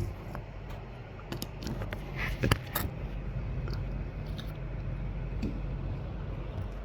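A few small sharp clicks and taps from the plastic parts of an opened mechanical keyboard switch being handled, bunched between one and three seconds in and loudest about two and a half seconds in, over a steady low hum.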